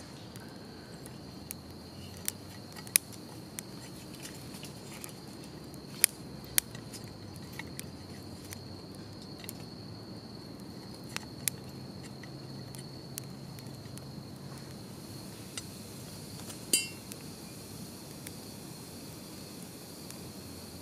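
Wood fire crackling in a small titanium wood-burning stove, with scattered sharp pops and one louder, ringing snap near the end, over the steady high trill of crickets.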